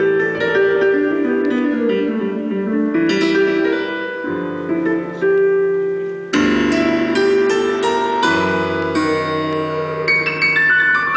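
Live rock band instrumental passage led by piano, playing flowing runs and chords over acoustic guitar. A fuller, louder chord comes in about six seconds in.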